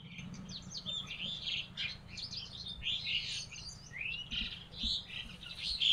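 Several birds chirping and calling in quick, overlapping high notes.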